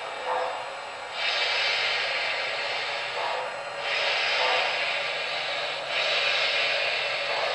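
Electronic sound system of an MTH O-gauge Santa Fe 4-8-2 L-3 Mohawk model steam locomotive playing steam hiss in spells of two to three seconds with short breaks, over the model's steady running noise.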